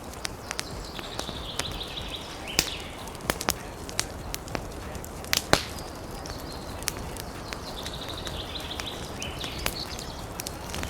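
Wood fire crackling, with irregular sharp pops, over a steady low wind rumble. A hissing sound rises twice, about a second in and again about seven seconds in.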